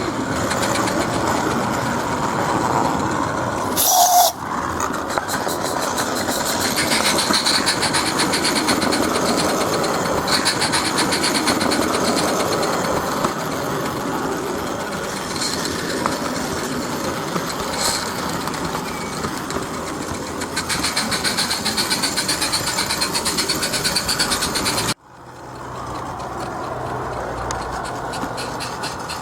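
SM32 garden-scale model goods train running along its 32 mm gauge track, with a steady rolling rattle. There is a brief loud burst about four seconds in, and the sound drops off abruptly and changes to a quieter, lower running sound near the end.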